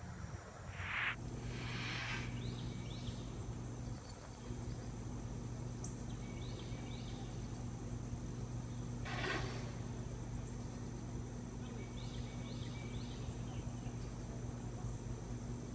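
Outdoor ambience: a steady low hum runs throughout, while a bird calls in short phrases of about three quick high chirps every few seconds. Two brief rushing noises come, one about a second in and another about nine seconds in.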